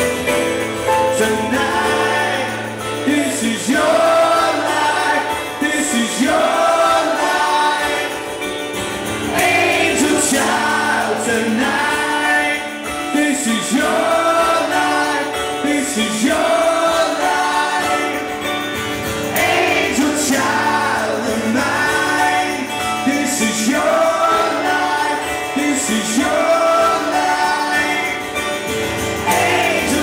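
Male voice singing live into a microphone over a strummed acoustic guitar, played loud through a concert hall's PA.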